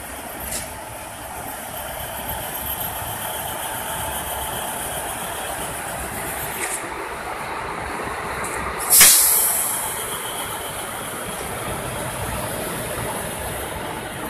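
WAG-7 electric locomotive moving past with a steady running noise. About nine seconds in comes a sudden loud hiss of air that dies away over about a second.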